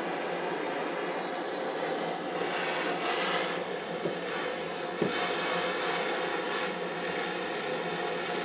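Canister gas torch burning with a steady hiss as it heats molten lead in a ladle, the hiss swelling for a moment about three seconds in. A single sharp knock about five seconds in.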